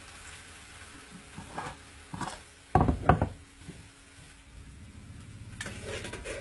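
Food frying in a metal wok with a faint steady sizzle, a spoon and spatula clinking and scraping against the pan, and a few louder knocks of kitchen containers being handled, loudest about three seconds in.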